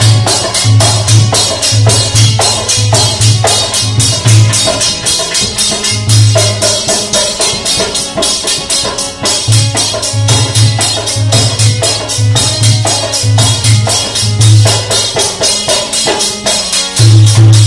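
Indian folk music: a chimta (long iron tongs with jingling rings) struck in a fast jingling rhythm, a dholak beating deep bass strokes in repeated runs, and a harmonium playing the melody.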